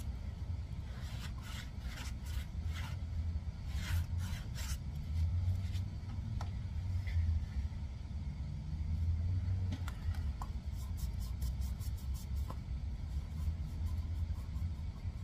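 Light clicks and scrapes of hand tools and metal parts being handled, in clusters near the start and again in the second half, over a steady low rumble.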